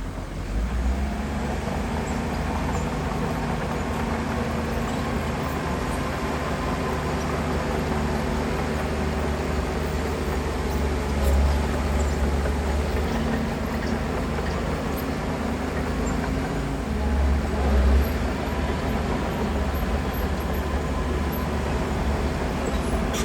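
Heavy diesel construction machinery running steadily under load, with its engine rising briefly twice.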